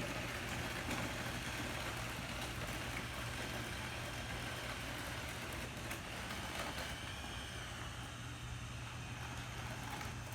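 Steady low hum of a running engine or motor, even and unchanging.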